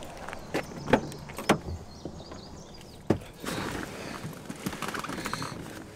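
A pickup truck's door being opened and someone getting into the cab: a few sharp clicks and knocks, a heavier knock about three seconds in, then rustling.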